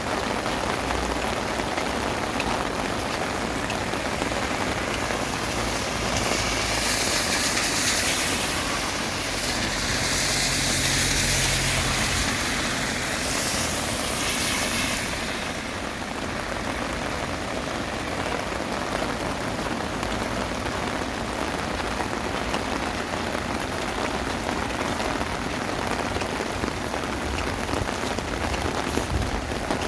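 Heavy rain falling steadily on hard surfaces. From about six seconds in a vehicle passes, a hiss with a low hum that swells and fades out by about fifteen seconds.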